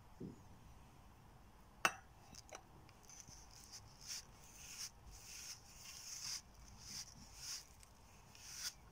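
Fingers mixing curd into crumbly maida-and-ghee dough in a steel bowl: faint, gritty rubbing rustles, about two a second from about three seconds in. A single sharp knock about two seconds in, as the steel cup of curd meets the bowl.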